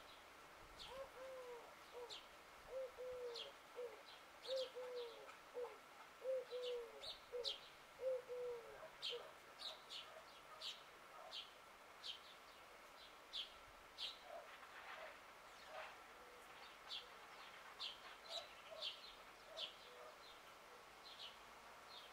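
A dove cooing, a rhythmic series of low, arching coos repeated for the first several seconds, with small birds giving short, high chirps throughout.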